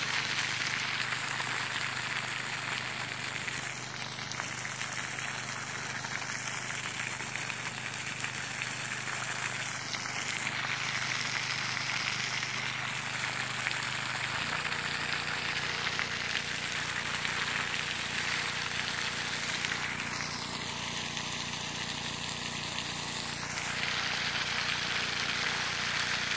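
Water jet hissing and spattering out of the open end of a pipe fed by a 6.5 hp motor pump through 90 m of rigid plastic pipe, with a steady low engine hum underneath that shifts slightly in pitch about halfway through.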